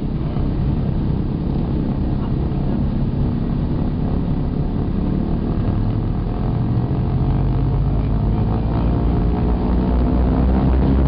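Douglas DC-3's radial piston engines and propellers running, heard from inside the cabin beside the engine: a steady drone of stacked tones whose pitch creeps up and grows a little louder over the last few seconds.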